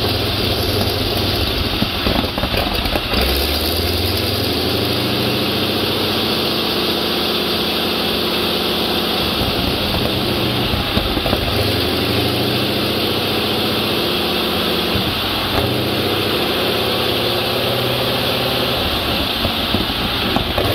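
Wright R-975 Whirlwind nine-cylinder air-cooled radial aircraft engine running on a test stand, loud and steady, its revs rising and settling again several times.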